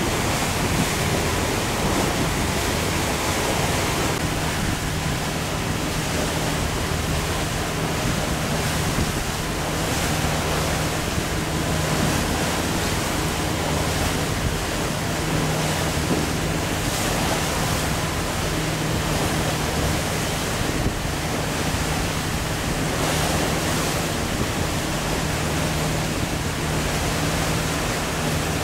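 Wind and rushing water on a sailboat heeled and sailing hard through choppy water, with spray coming over the bow. The noise is steady with occasional surges. A steady low hum runs underneath.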